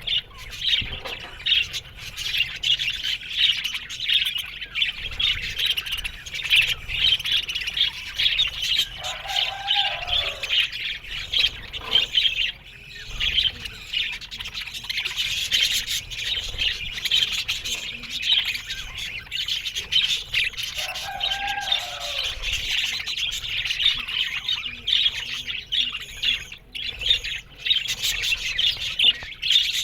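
A colony of budgerigars chattering and warbling in a dense, continuous twitter. Twice, about ten seconds apart, a lower arching call stands out above the chatter.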